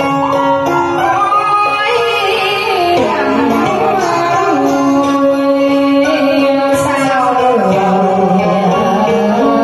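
Karaoke duet of a Vietnamese song: a woman and a man singing into handheld microphones over a recorded backing track.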